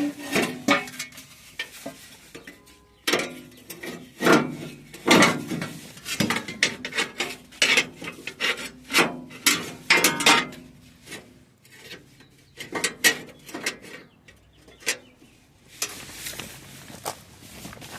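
Irregular clanks, knocks and scrapes of sheet metal being handled and worked, with a quieter stretch near the end.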